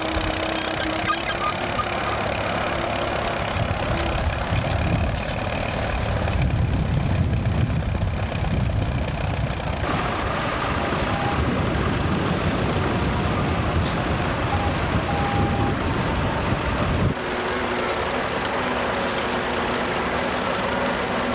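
Vintage tractor engine running under load in the field, a steady mechanical rumble that changes abruptly about ten and again about seventeen seconds in.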